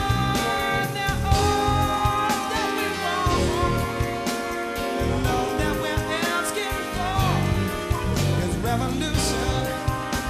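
A male singer singing into a microphone over a live band, with bass, drums and sustained keyboard chords.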